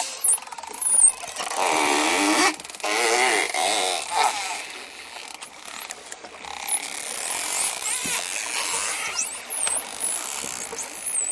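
Dolphins vocalizing: high whistles sweeping up and down, with wavering buzzy squawks and a rapid click train in the first few seconds.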